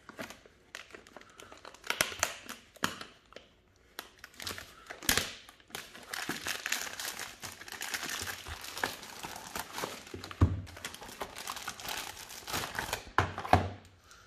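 Plastic poly shipping mailer being slit open with a hobby knife and pulled apart: irregular crinkling, rustling and tearing with sharp crackles, and a few dull knocks as the boxes inside are handled.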